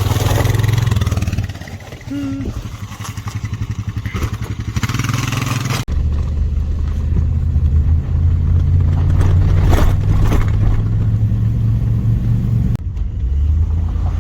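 A vehicle engine running steadily, heard from on board. Its sound changes abruptly twice: about six seconds in, and again near the end.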